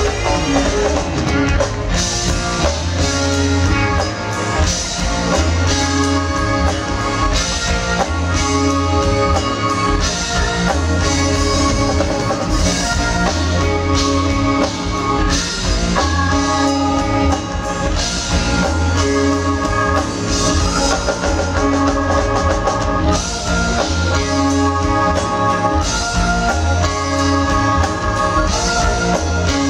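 Live band music: a drum kit, electric bass and keyboards play a steady groove, with the bass line repeating every couple of seconds.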